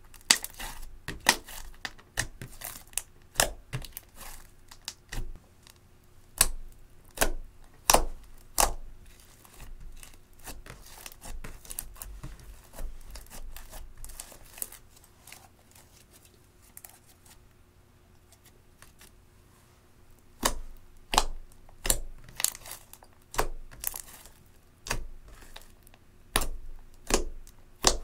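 Thick slime mixed with eyeshadow being squeezed, kneaded and poked by hand, giving sharp wet clicks and pops in quick clusters. The pops thin out for a few seconds in the middle, then come thick again near the end.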